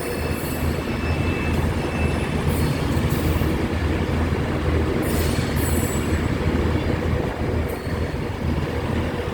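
Avanti West Coast Class 390 Pendolino electric train running past the platform: a steady low rumble of wheels on rail, with high-pitched squeals coming and going every couple of seconds.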